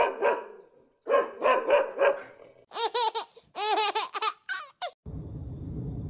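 A dog barking: a group of short barks, a second group, then higher rising-and-falling yelps that tail off in a few short whines. A low steady hum comes in near the end.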